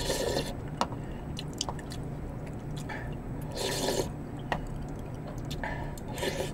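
Noodles being slurped from a spoon out of a bowl of soup, in three short slurps: one at the start, one around the middle and one near the end. Small wet clicks of eating and utensils fall between them.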